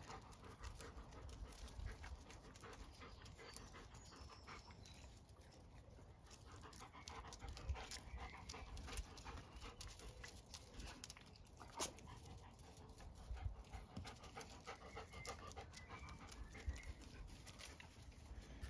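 Puppies and their mother dog panting faintly as they scramble and play, with scattered small clicks and scuffs.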